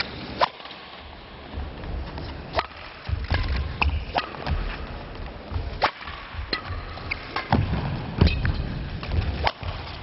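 Table tennis ball knocking against rackets and the table during play, a string of sharp clicks at uneven spacing, roughly one every half second to a second.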